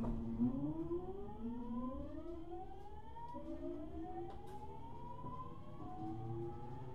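VVVF inverter and traction motor whine of a JR East 701 series train on its original, unrenewed equipment, accelerating from a standstill: several tones rise in pitch together, the pattern changing about three times as speed builds. A sharp click comes just after the start.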